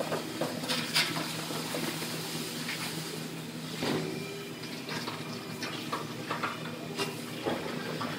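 Abrasive pad scrubbing over a sheet-metal car quarter panel, then short hisses of an aerosol spray can over it, with scattered scrapes and clicks over a steady low shop hum.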